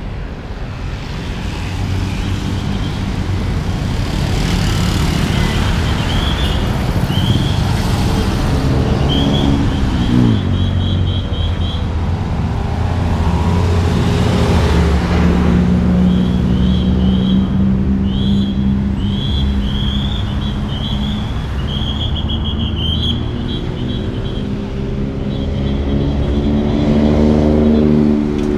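Road traffic passing on a busy city street: a steady rumble of cars and buses. Near the end, one engine rises in pitch as a vehicle speeds up.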